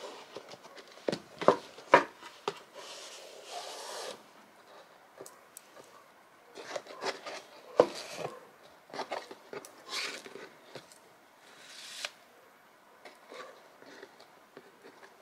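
Handling sounds from a cardboard gift box on a wooden table. A few sharp knocks come in the first couple of seconds, then rustling and rubbing as a satin ribbon is drawn around the box and tied, with more small clicks along the way.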